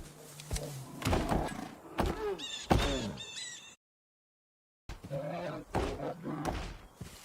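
Bear sound-effect clips: sharp thuds and knocks mixed with falling growls and a high squeal, in two stretches broken by an abrupt cut to dead silence about four seconds in.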